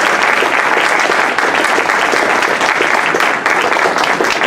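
Audience applauding at the end of a talk: many hands clapping, dense and steady.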